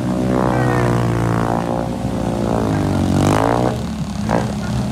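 ATV engine running at high revs as the quad churns through deep mud with its wheels spinning. The pitch climbs and falls back about three seconds in.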